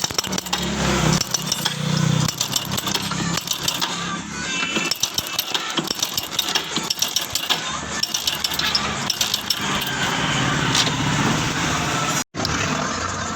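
Hero Passion Pro single-cylinder four-stroke engine running with a fast metallic rattle from the timing chain, the sign of a worn or slack timing chain. There is a brief cut-out about 12 seconds in.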